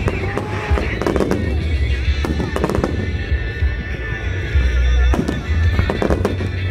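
Aerial fireworks shells bursting over the sea: a rapid, irregular series of sharp bangs and crackles with a heavy low rumble underneath.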